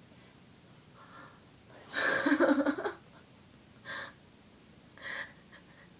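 A person's loud breathy gasp about two seconds in, followed by two short sharp breaths.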